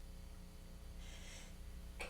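A faint, short breath in about a second in: the build-up breath of a sneezing fit, just before the next sneeze.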